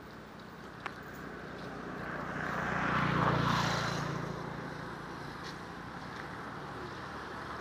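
A motor passing by: a steady engine hum that swells to its loudest about three seconds in and then fades back.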